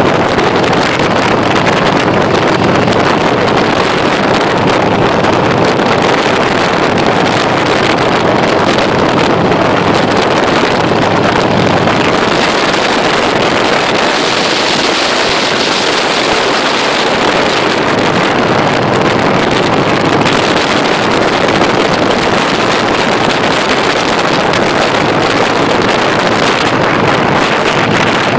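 Harley-Davidson Softail Cross Bones V-twin running steadily at highway cruising speed, heard under heavy wind buffeting on the microphone. For a few seconds around the middle the wind hiss swells and covers the engine's low note, then the engine comes back through.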